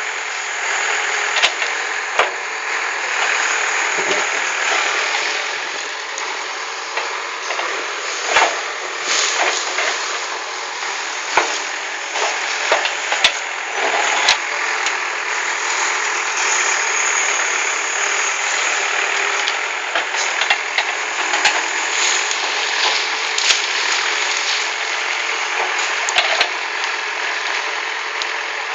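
Diesel engine of a CAT 424B backhoe loader running steadily as the machine works, with irregular sharp knocks and clatter throughout.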